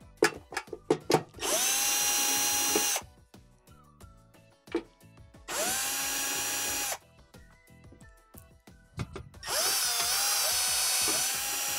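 Cordless drill-driver with a quarter-inch hex nut driver backing out sheet-metal screws. It runs three times, each run rising quickly to a steady whine; the last run is the longest. Several sharp clicks come just before the first run.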